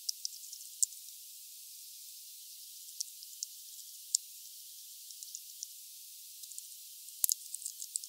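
Hawfinch pecking at sunflower seeds on a feeder tray: scattered sharp clicks and ticks over a steady thin hiss. The loudest is a knock a little after seven seconds, followed by a quick run of clicks.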